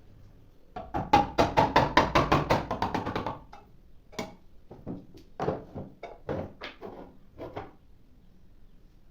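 A fast run of sharp knocks, about five a second for two and a half seconds, then about eight slower, weaker knocks.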